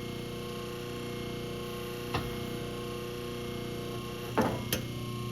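Steady electrical hum, one even tone with overtones, with a faint click about two seconds in and another short knock near the end.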